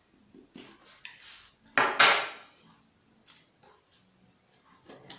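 A spoon clinking against dishes as chocolate powder is spooned into a cup: light taps, then two loud clinks in quick succession about two seconds in, and a few faint taps after.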